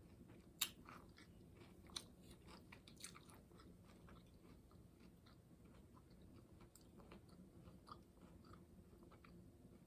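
A person chewing and biting taco food close to the microphone: faint wet mouth sounds and small crunches. The loudest is a sharp click about half a second in, with two smaller ones near two and three seconds.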